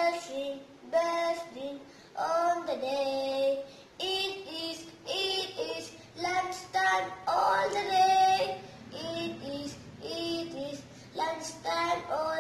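A young boy singing a song on his own, with no accompaniment, in short phrases with held notes and brief breaths between them.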